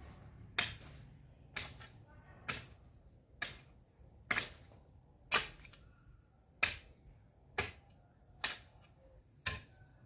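Short-handled hoe chopping into soil and weeds: sharp strikes about once a second, ten in all.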